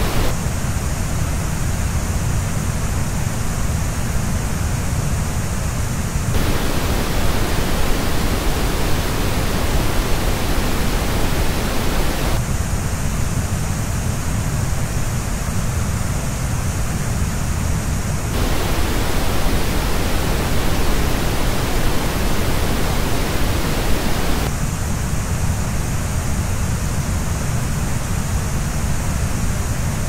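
Pink noise switching about every six seconds between the flat original reference and the same noise as played through a Turtle Beach Stealth Pro gaming headset and picked up on a measurement dummy head. The headset's three turns sound hollow in the middle and upper middle, with the bass standing out; the two flat reference turns lie between them.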